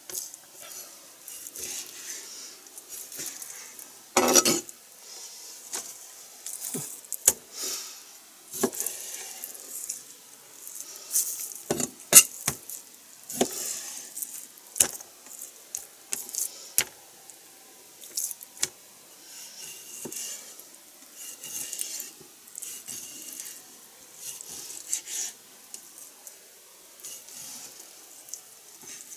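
Kitchen knife cutting raw chicken breast on a plastic cutting board: irregular knocks and clicks of the blade striking the board, with a louder knock about four seconds in.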